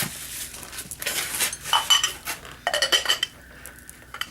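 Ceramic pieces of a cream and sugar set clinking together as they are handled, with short ringing clinks about two seconds in and again around three seconds.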